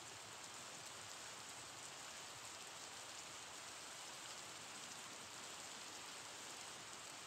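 Steady, even hiss with no separate sounds in it, brightest in the upper range.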